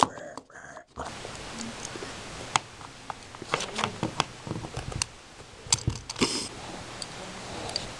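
Light clicks, taps and rustles of plastic toy figures being handled and moved by hand, over a steady low hiss.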